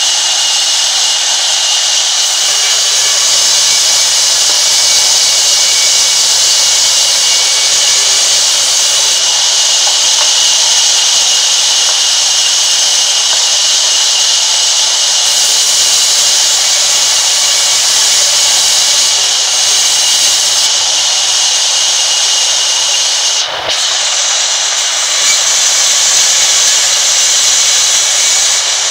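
Sawmill band saw running and cutting wood as planks are fed through it by hand: a loud, steady, high-pitched whine and hiss of blade on timber, with a brief dip in level about three-quarters of the way through.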